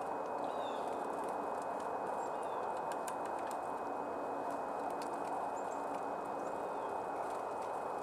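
Red-bellied woodpecker pecking at seed in a hollow stump: scattered sharp taps over a steady rushing background noise, with a few short high chirps from small birds.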